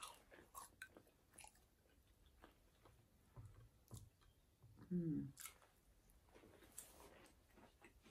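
Faint close-up chewing of food, with soft mouth clicks and smacks, and a brief low sound from the throat about five seconds in.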